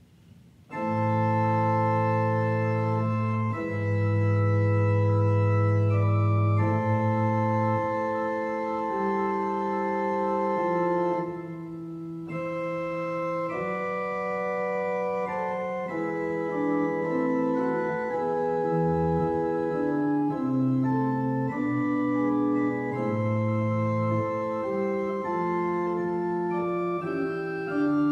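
A slow prelude in A minor on a keyboard instrument, played as held chords. The notes hold at an even level without fading, like an organ rather than a struck piano. It begins about a second in and softens briefly around the middle.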